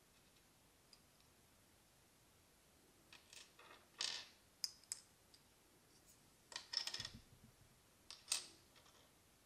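Tiny plastic miniature toy pieces being handled and set down: faint light clicks and taps against a small plastic plate and the tabletop, in short clusters about three, four, seven and eight seconds in.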